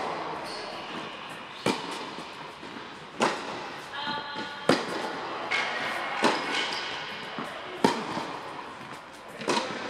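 Tennis ball struck by rackets in a baseline rally, a sharp pop about every second and a half, six in all, with the ball's softer bounces between them.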